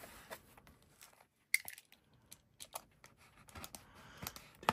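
Scattered light taps, clicks and rustles of a cardboard trading-card box and its packs being handled, with one sharper click about one and a half seconds in.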